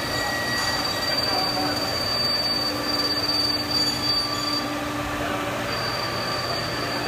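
Haas SL10 CNC lathe cutting with a button insert under flood coolant, the spray hissing under a steady high-pitched squeal from the cut that drops out briefly about five seconds in. The uploader puts the squeal down to a feed rate that is too slow.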